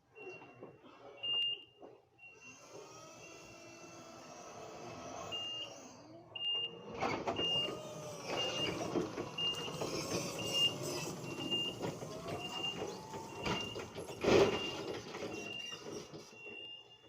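A vehicle's reversing alarm beeping about once a second over the running of heavy machinery, with squeals and clanks and one loud knock near the end.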